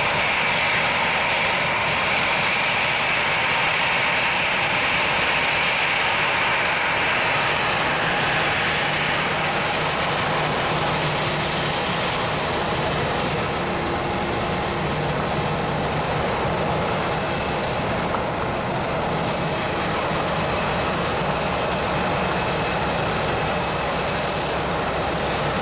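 Airbus A319-100 jet airliner's engines running at taxi power as it rolls across the apron: a steady loud noise with a high whine that is strongest for the first nine seconds or so, then eases.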